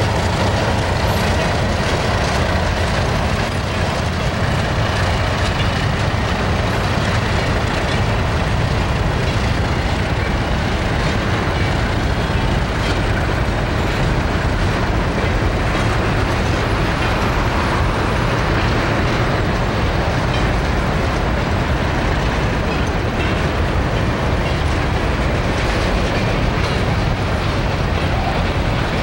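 Freight train passing close by: an ALCo RSD16 and an EMD GR12 diesel locomotive working in multiple go by, followed by empty grain hopper cars rolling past. The engines and wheels on the rails make a loud, steady, unbroken noise.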